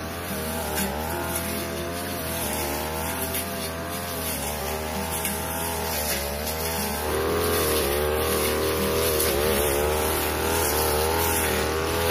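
Backpack brush cutter's 42cc engine running at high revs, its pitch dipping and recovering as the blade cuts through tall, thick grass. It gets louder about seven seconds in.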